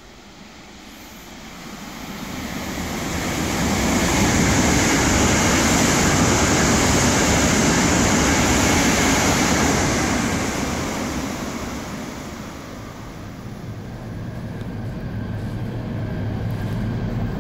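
E2 series Shinkansen set passing through a station at speed without stopping: a broad rushing noise that builds over a few seconds, holds for about six seconds, then fades away. In the last few seconds a steadier, lower running rumble heard from inside a moving Shinkansen car.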